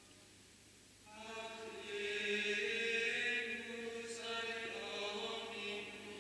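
A choir of monks singing Gregorian chant, slow held notes that move stepwise, coming in about a second in after a brief silence.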